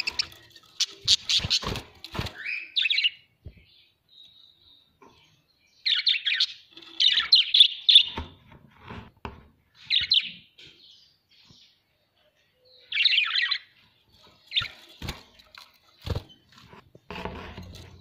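Pet budgerigars chirping and chattering in short bursts of warbling calls, with pauses between the bursts. A few sharp clicks come in among them.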